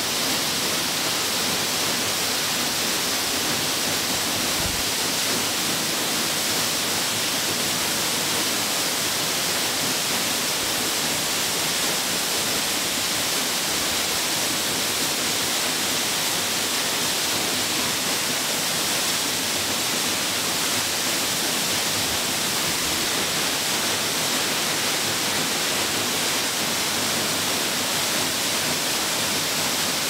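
Okgye Falls, a waterfall of about 20 m, pouring onto rock: a steady, unbroken rushing hiss of falling water that does not change.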